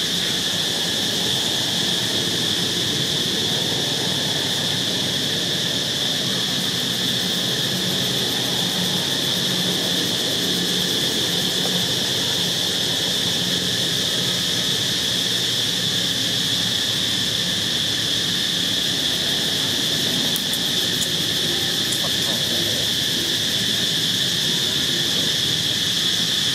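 Steady chorus of insects: a continuous high-pitched drone that holds the same pitch and level throughout.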